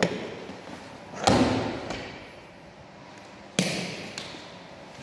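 Rubber bumper plates being slid onto a steel barbell sleeve: two loud knocks, about a second in and again two seconds later, each ringing briefly as the plate hits the plates already on the bar.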